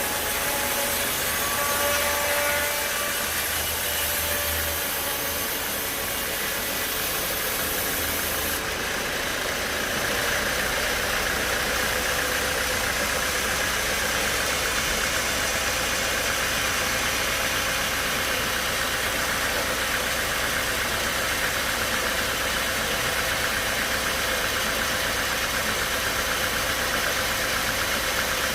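Sawmill machinery running steadily, a continuous mechanical noise; about nine seconds in the sound changes and becomes a little louder and more even.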